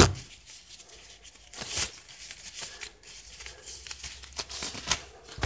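Handling noise from a phone camera being moved and fumbled: a loud knock at the start, a swish, then soft rubbing and scattered taps, with a sharp knock near the end.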